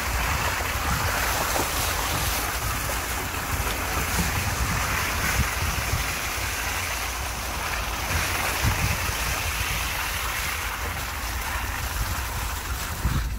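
Off-road vehicle driving through mud, heard from outside beside the wheel: tyres splashing through a puddle at first, then running over wet leaves and mud, under a steady low rumble and wind buffeting the microphone.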